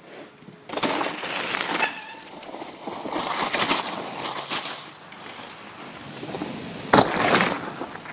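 Dry fallen leaves crunching and rustling under a dog's running paws close to the microphone, in three loud bursts, with a sharp knock about seven seconds in.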